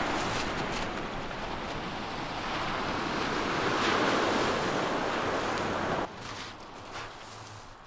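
Surf breaking and washing on a shingle beach, with wind on the microphone. The sound drops away suddenly about six seconds in.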